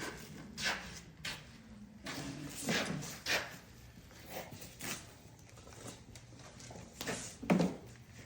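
Scattered knocks and clinks of tools and small metal parts being handled, about half a dozen sharp ones, the loudest near the end.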